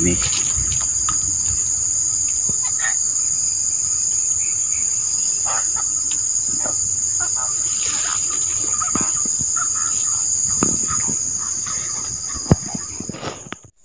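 Steady, loud, high-pitched chorus of insects buzzing without pause, cutting off suddenly near the end.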